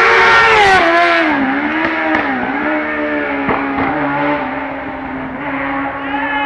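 Rally car engine at high revs passing by, its pitch dropping as it goes past, then settling to a steadier note as it draws away. Two sharp cracks come about three and a half seconds in.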